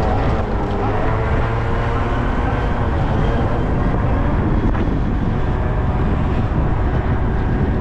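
Yamaha Zuma 50cc two-stroke scooter engine running steadily at cruising speed near full throttle, with wind rushing over the microphone.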